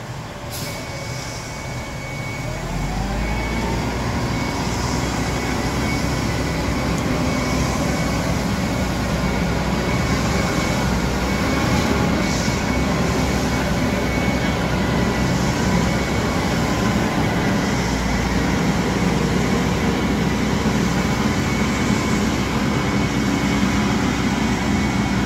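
Concrete mixer truck's diesel engine revving up about two seconds in, then running steadily as the truck pulls away.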